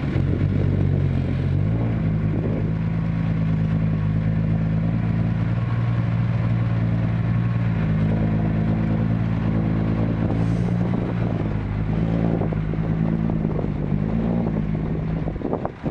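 Old six-wheel dump truck's diesel engine running as the loaded truck drives slowly and pulls up. The engine note steps up about two seconds in, holds steady, and changes slightly again near the end.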